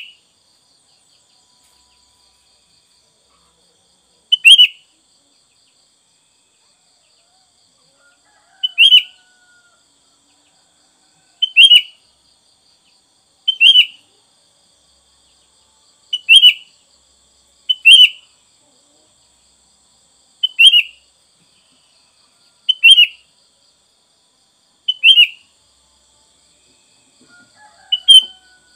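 Sooty-headed bulbul (kutilang) giving short, loud calls, one every two to three seconds, about eleven in all.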